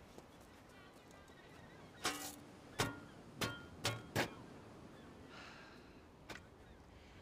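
A spade driven into turf five times in about two seconds, its blade striking a hard white layer under the soil, some strokes with a short ringing clink.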